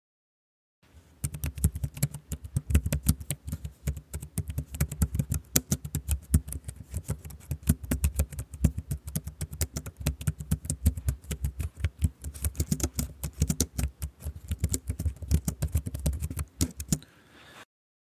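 Fast, continuous typing on a computer keyboard, a rapid stream of key clicks. It starts about a second in and stops abruptly a little before the end.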